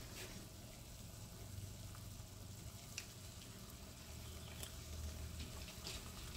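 A pot of water boiling gnocchi, a faint steady bubbling, with a few light clicks.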